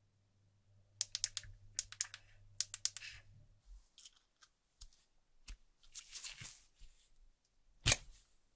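Small sharp clicks and taps as an ejector pin and the card tray of a Samsung Galaxy Tab S9 Ultra are worked with gloved fingers, with a brief scrape partway through and one louder click near the end as the tray comes out of the frame.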